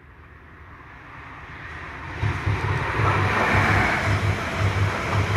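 A High Speed Train of Class 43 diesel power cars and Mk3 coaches approaching and passing at speed. Its noise rises steadily for about two seconds, then becomes a loud rush with a low pulsing about twice a second.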